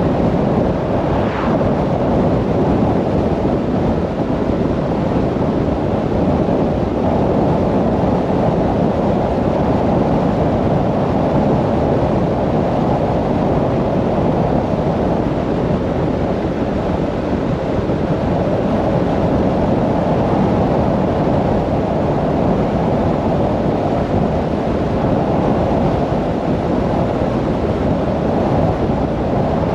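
Steady wind rush over the microphone of a camera on a moving road vehicle, mixed with the vehicle's running and tyre noise.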